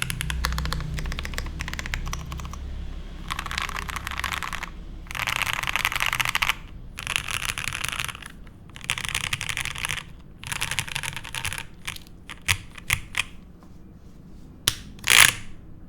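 Typing on a gasket-mounted Mammoth75 mechanical keyboard with lubed Gateron Black Ink v2 linear switches, an FR4 plate and GMK keycaps. It starts with fast, even typing, then comes in several dense bursts of rapid keystrokes. Near the end there are a few separate key presses and one loud stroke.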